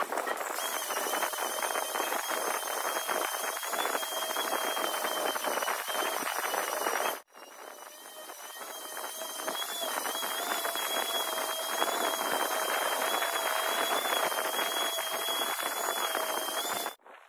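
Hand wet-sanding of an alloy wheel with a sanding pad and water, a dense scratchy rasping, with a thin steady wavering high whine over it. The sound cuts out briefly about seven seconds in, then resumes.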